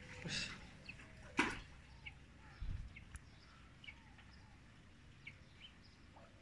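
Faint, scattered short bird chirps, with one sharp knock about a second and a half in and a dull thump about a second later.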